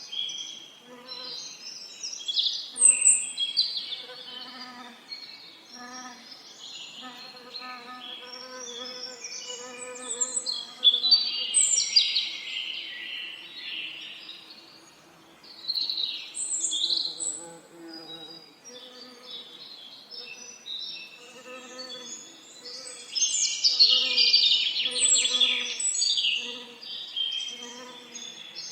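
Songbirds singing with many quick chirps and trills, loudest in bursts about 3 seconds in, around 11 to 13 seconds, and near 24 to 26 seconds. Under them runs the low buzz of bees, swelling and fading about once a second.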